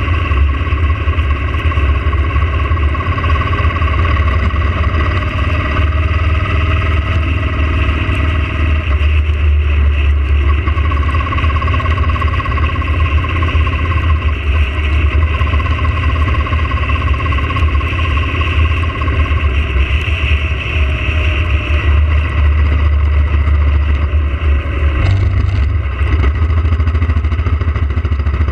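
Yamaha motorcycle riding at steady road speed, its engine running evenly.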